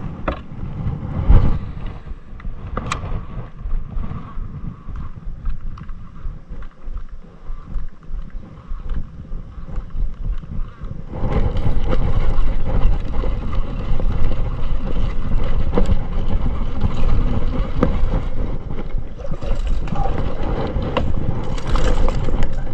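Wind buffeting the microphone of a camera worn by an angler in a kayak, with a few knocks and rustles from handling rod and reel. The noise gets louder about eleven seconds in and stays up.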